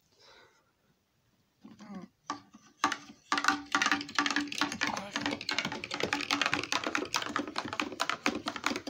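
A spoon stirring a drink in a cup: rapid clicking and scraping against the sides, starting about three seconds in and going on to the end.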